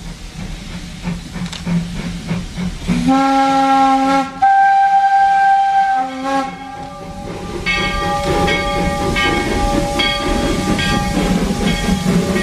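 Steam locomotive No. 68 drawing near with its exhaust chuffing, then its steam whistle blowing for about three seconds and a short toot after. From about seven seconds in its bell rings steadily over the chuffing and the hiss of steam at the cylinders.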